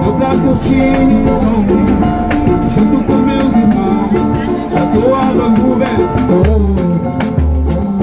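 Samba music played on a drum and a shaker-type rattle, with melodic instruments over a steady rhythm. Deep drum beats come in about six and a half seconds in, roughly one a second.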